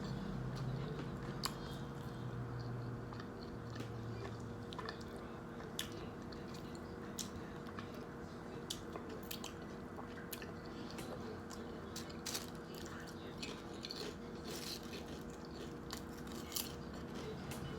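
Close-miked chewing and biting of a grinder salad sandwich: wet mouth clicks and crunches scattered irregularly over a faint steady hum.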